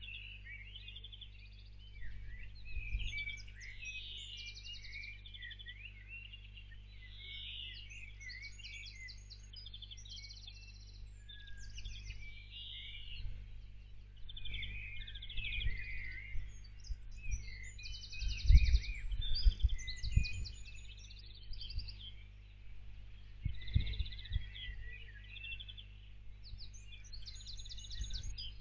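Dawn chorus of several songbirds chirping, with rapid trills. Under it runs a steady low hum, broken by a few low rumbling thumps, the loudest a little past the middle.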